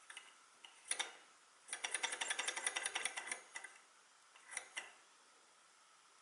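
Alcohol-burner-heated model Stirling engine ticking rapidly as its flywheel turns, about ten clicks a second for two seconds, then two lone clicks. Its piston and linkage are poorly held, and the speed is unsteady.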